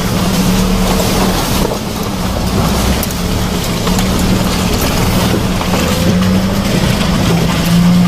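Hyundai Porter II 4WD truck's diesel engine running at a steady low speed, with a constant hum, as it drives along a gravel forest road; tyres crunch and ping on loose stones throughout.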